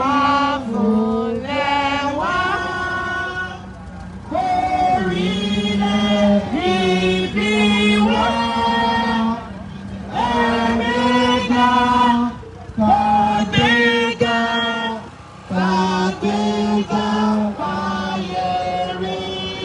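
A group of voices singing a chant-like song in phrases of long held notes, with short breaks between the phrases.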